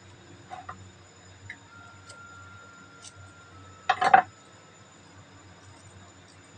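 Light clicks and taps from raw chicken wings being worked by hand over a ceramic plate, with a quick cluster of sharp clicks about four seconds in.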